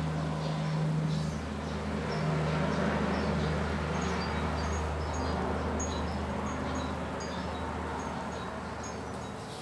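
A pot of chicken-feet soup boiling on the cooktop, a steady bubbling hiss over a low hum, with short high chirps scattered through.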